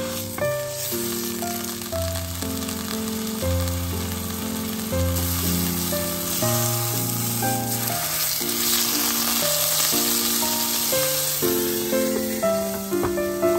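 Food frying and sizzling in a pan, a steady hiss that is strongest in the middle, with background music carrying a melody over it.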